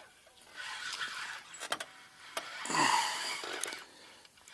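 Fishing reel being cranked as a hooked bass is reeled in: an uneven mechanical whirring with a few sharp clicks, and a louder burst of noise about three seconds in.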